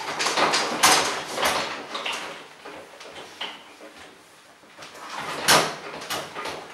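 Fabric rustling and handling noises as underpants are pulled down a seated person's legs and off the feet, with short knocks and bumps throughout. The loudest knocks come about a second in and about five and a half seconds in.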